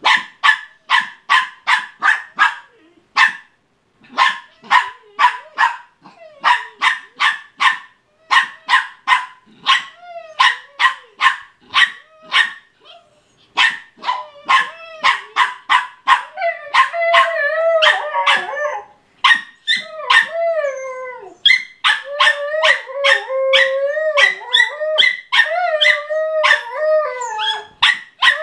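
Small dog, a Bichon, barking in rapid runs of sharp, high barks, about three or four a second, with short pauses between runs. From about halfway through, a long wavering, howl-like whine rises and falls between the barks.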